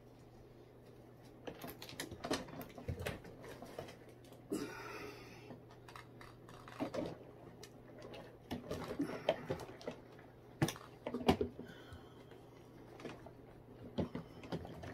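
Irregular clicks, knocks and rustling of someone rummaging through gear and handling the lid and latches of a hard plastic tackle box, with a longer rustle about four seconds in.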